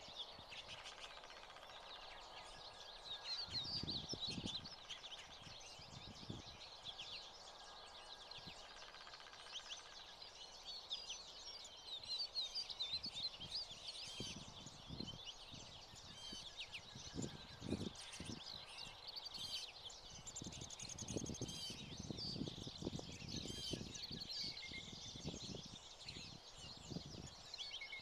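A flock of American goldfinches twittering and chirping with rapid high calls, with scattered soft low thumps mixed in.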